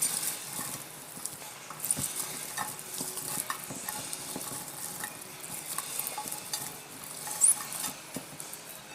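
Fresh asparagus spears being handled and tossed in olive oil in a container: scattered light clicks and rustling as the spears shift and knock together. A short high rising squeak near the end.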